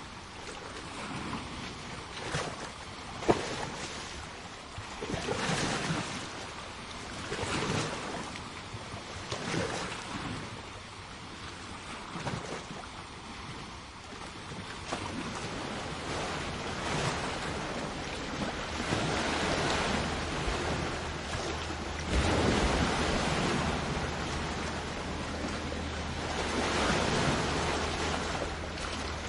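Sea waves breaking and washing up on a shore, surging every couple of seconds and building to a more continuous wash in the second half, with a sharp slap about three seconds in.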